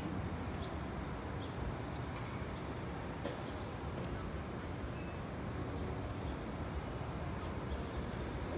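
City street ambience: a steady rumble of traffic with a few short, high chirps.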